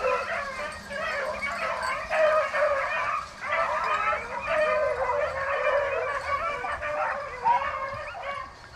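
A pack of rabbit-hunting hounds baying together in full cry on a rabbit's trail, many voices overlapping without a break.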